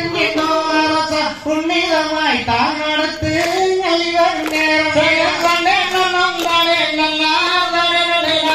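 Valli Kummi folk song: a singing voice carrying a continuous, wavering melody with music, marked by a few sharp beats.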